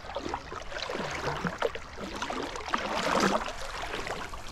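Shallow seawater splashing and lapping at the shore in quick, irregular splashes, louder about three seconds in.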